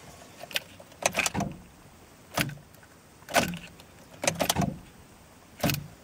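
Ignition key turned over and over, each turn giving a sharp click from the starter solenoid and a jangle of the key ring, about once a second. The engine does not crank: the thin 125-amp jumper cables cannot carry enough current to the starter.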